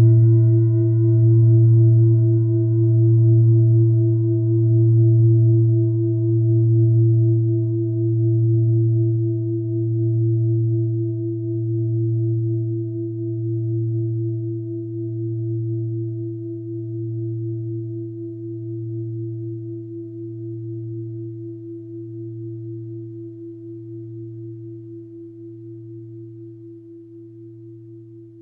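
A mindfulness bell rings out after a single strike and slowly dies away. Its higher overtones fade first, leaving a low hum that wavers in a regular swell about every two seconds.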